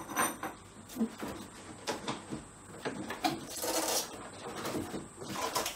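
Cardboard and polystyrene foam packaging being handled: irregular scraping and rubbing with a few short knocks.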